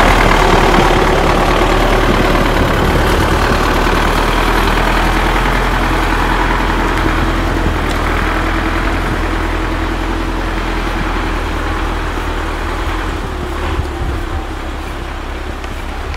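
Belarus T-40 tractor's diesel engine idling steadily, slowly fading away.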